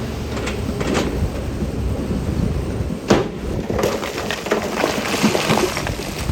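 Stones and rocks clattering and crashing against each other over a heavy machine's low rumble, with a sharp crack about three seconds in and a dense run of clatter after it.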